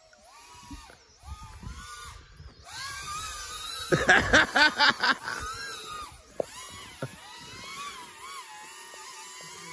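Shendrone Squirt FPV quadcopter's motors and propellers whining, the pitch rising and falling with the throttle as it maneuvers. About four seconds in comes a much louder, rapid run of sharp pulses lasting about a second.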